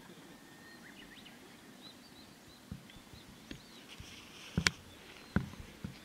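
Small birds chirping with short, quick calls over faint outdoor background noise; two sharp knocks about two-thirds of the way through, the first the loudest sound.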